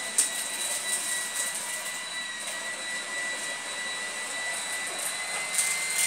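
Goblin cordless stick vacuum running on its low power setting, its motor giving a steady high whine over a hiss, with scattered sharp clicks of debris being drawn up from the rug.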